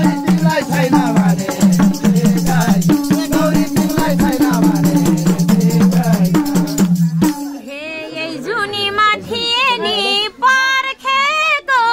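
Nepali dohori folk music with singing over fast, steady percussion that includes a rattle, cutting off abruptly a little past halfway. After the cut, a woman's voice alone, with short pauses.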